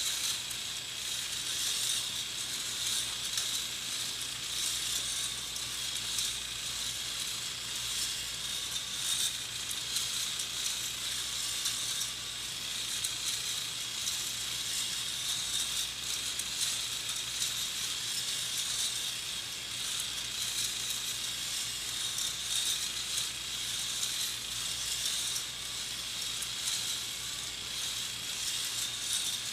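Motorized K'nex Ferris Coaster Wheel turning: a steady high-pitched whir with dense, fast clicking and rattling from its plastic gears and parts.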